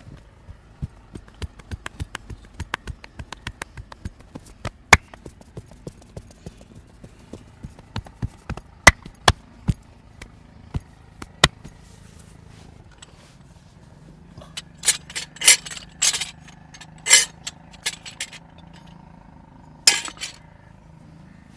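Hands working in a head and neck massage: an uneven run of sharp clicks and cracks for about twelve seconds, then a handful of louder, longer bursts near the end.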